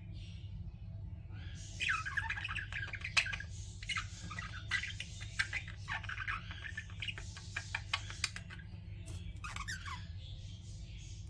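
Pet budgerigars chattering and squawking: a dense run of rapid chirps and warbles from about two seconds in until past eight seconds, then a short call gliding downward near the end.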